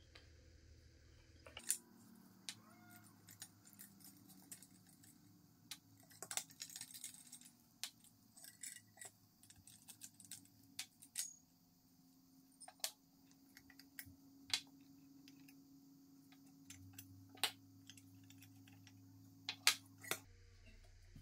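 Small brass parts of an antique Eugène Farcot conical pendulum clock being unscrewed, lifted off and set down: scattered light metallic clicks and clinks, with the loudest few near the end.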